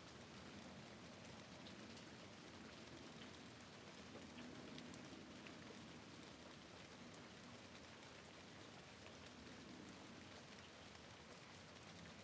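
Faint, steady rain falling on a window, with scattered light drop ticks.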